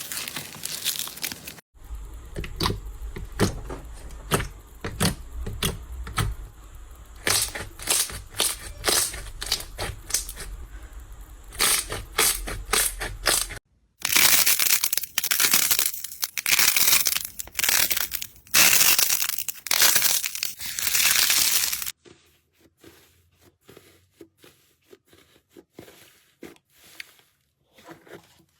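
Slime being pressed and squeezed by hand in a run of separate clips, making quick crackling, popping and crunching sounds. The loudest, densest crackle comes in the middle, and a quiet stretch of scattered small clicks follows near the end.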